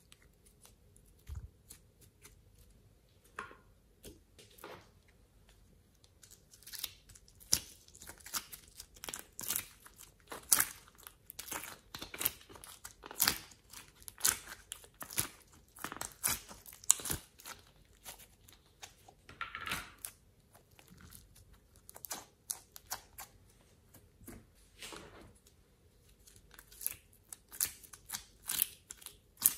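Fingers squeezing and pulling glossy slime and scooping soft slime and clay out of plastic tray compartments: irregular sticky clicks and crackles, sparse at first, then coming thick and fast.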